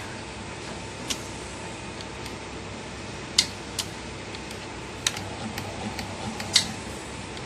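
Industrial label-stamping machine running with a steady hum, its mechanism giving a few sharp clicks at irregular intervals. The uneven action goes with its fault: movement irregular, timing off and the stamp turning the wrong way.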